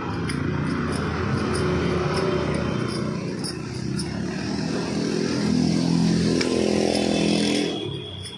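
A motor vehicle's engine runs close by, growing louder about five to seven seconds in, then dying away near the end.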